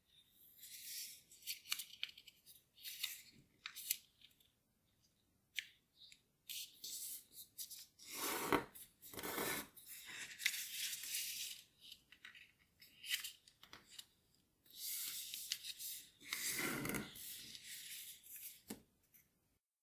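Origami paper being folded by hand: crisp rustling and rasping as fingers turn the top corners down and run along the creases, in many short strokes with two longer, louder stretches, one about halfway through and one near the end.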